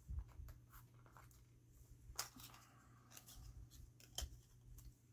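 Faint handling noise of small craft pieces being picked through, with scattered light clicks and rustles over a steady low hum.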